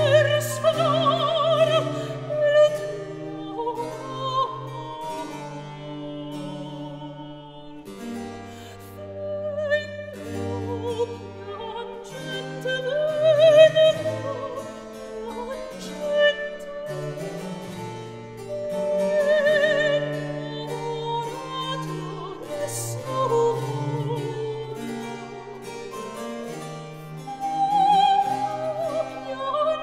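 Classical background music: an operatic voice singing with vibrato over an instrumental accompaniment.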